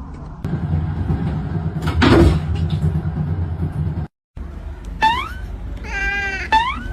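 A cat meowing: short rising calls about a second and a half apart, with one longer wavering meow between them, over a steady low hum. Before them, after a louder stretch of indistinct noise, the sound cuts out briefly.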